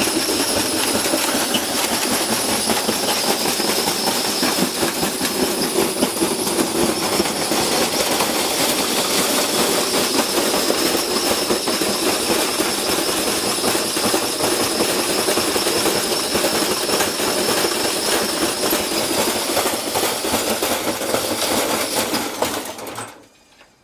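Washing machine spinning with a 20-kilo sealed lead-acid battery in the drum: continuous heavy rattling and banging from the unbalanced load, over a steady high whine from the motor. About 23 seconds in it cuts out suddenly, which the owner puts down to the machine probably unplugging itself.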